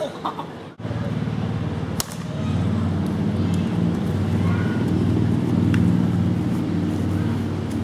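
A single sharp crack of a plastic wiffle ball bat hitting the ball about two seconds in, over a steady low hum that is the loudest sound.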